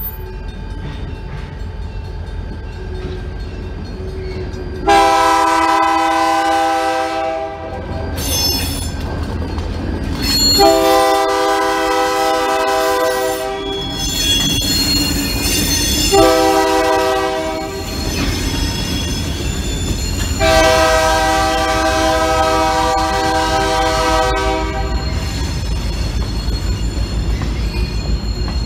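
Diesel locomotive's multi-note air horn sounding the grade-crossing signal: long, long, short, long, the last blast held longest. Under the horn is the steady low rumble of the locomotive and its hopper cars rolling past.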